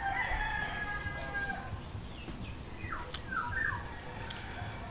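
A rooster crowing: one long, even call lasting about a second and a half. A few short falling calls follow around three seconds in.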